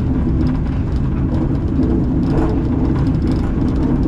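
Vintage two-axle electric tram running along the track, heard from the driver's cab: a loud, steady rumble of wheels on rails, with a brief burst of extra rattle about halfway through.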